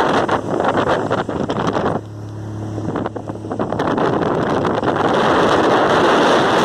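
Wind rushing over the microphone on a moving speedboat, with the boat's engine underneath. About two seconds in the rush drops away for a moment and the engine's steady hum comes through, then the wind builds back up.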